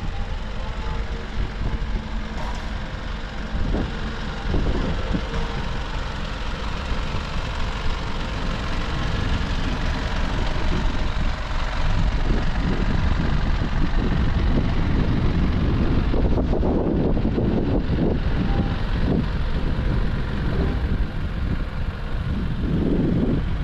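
Steady low, rumbling outdoor noise with no clear tone, growing louder about halfway through with irregular low gusts.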